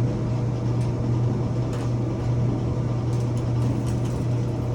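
Samsung clothes dryer running, its drum motor and blower giving a steady low hum with a few faint light ticks, switched on to test the heating element.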